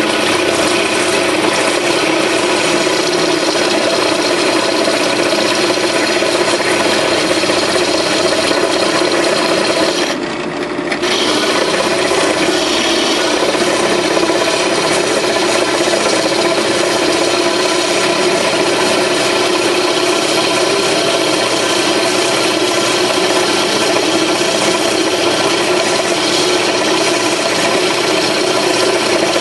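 Power drill with a step bit cutting through a cast-iron brake rotor, boring its fifth lug hole, in a steady, continuous run. The drill eases off briefly about ten seconds in, then carries on cutting.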